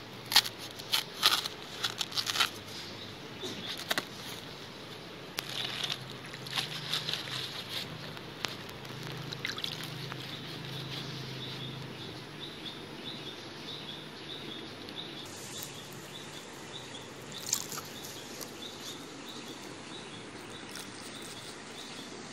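Fresh banana leaf crackling sharply as a knife cuts through it along the midrib, then softer leaf rustling as it is rubbed and washed by hand with water. A high chirp repeats steadily in the background.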